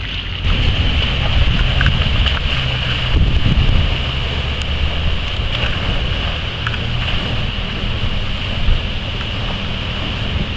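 A 4x4's engine running as it ploughs through deep water, with water rushing and splashing around it. Louder for the first few seconds, then steady.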